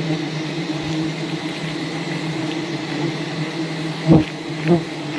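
Swarm of wild honeybees buzzing around the hive as a steady, loud drone, with a louder buzz swelling briefly twice near the end as bees fly close.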